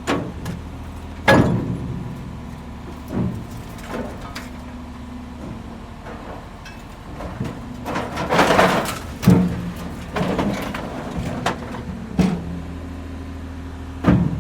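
Construction machinery with its engine running steadily, with a series of sharp clanks and knocks and a longer rattling, scraping stretch a little past the middle.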